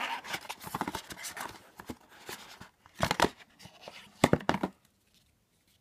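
Small cardboard gift box being opened by hand: card scraping and rustling as the flap and insert are pulled out, with two louder bursts of sharp knocks about three and four and a half seconds in.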